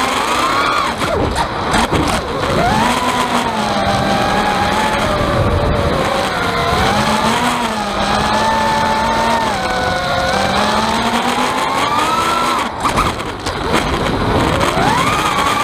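Quadcopter's four EMAX 2205 2300kv brushless motors on 5-inch props whining, their pitch rising and falling with the throttle, with a rattle through it that the owner can't explain and suspects is a loose mic inside the camera or cheap motors. The whine breaks off briefly near the end as the throttle is cut, then sweeps back up.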